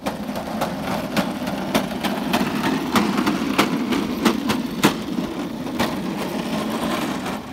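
Small go-kart driving along a concrete sidewalk: a steady rolling rumble, with a sharp clack about every 0.6 s as the wheels cross the joints between the slabs.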